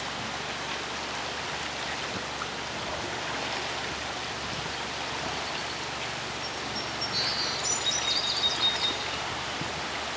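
Steady rush of fast-moving floodwater. A bird chirps in short high notes from about seven to nine seconds in.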